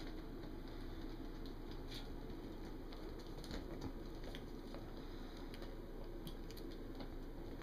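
Scattered light clicks and taps of goat and donkey hooves on a concrete porch, irregular and faint over a steady background hiss.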